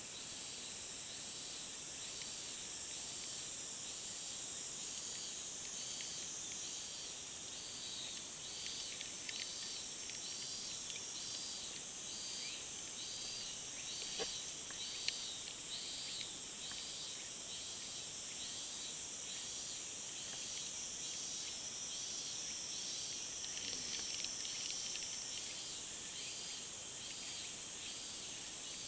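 Insects shrilling in the trees: a steady high hiss with a pulsing call repeating about once a second. A single sharp click about halfway through.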